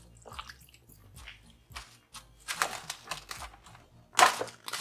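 Crinkly rustling and light knocks as a bowl of seasoned chicken wings is covered and handled. There are scattered short sounds, with louder crinkling bursts about two and a half seconds in and again at about four seconds.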